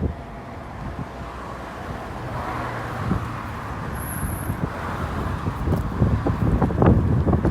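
Wind buffeting the microphone in irregular low thumps that get stronger near the end, over a steady outdoor roar.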